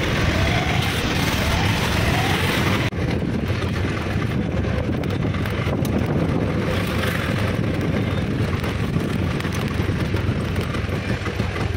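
Auto-rickshaw ride: the small engine running steadily with road and traffic noise. About three seconds in there is a brief drop and the sound turns less hissy.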